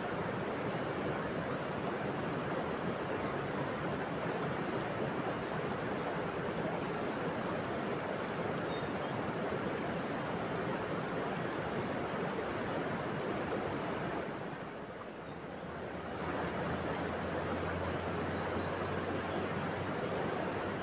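Steady rush of a fast, shallow river flowing over rocks, dipping briefly about fifteen seconds in.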